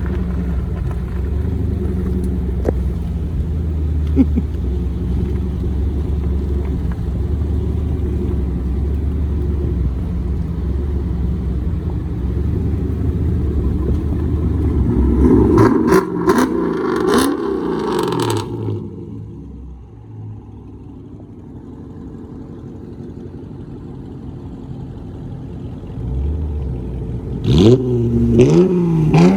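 Dodge Charger exhaust idling with a steady deep rumble, then revved a few times about halfway through. It settles back to a quieter idle, and sharp revs start again near the end.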